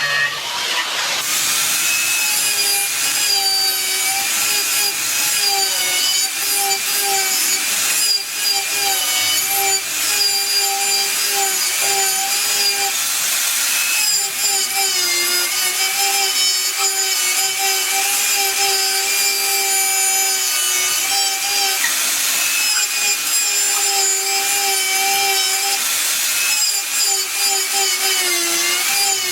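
Electric power tool cutting wood, its motor humming steadily with a pitch that wavers slightly as it works, over a continuous hiss of cutting. The cutting noise thickens about a second in.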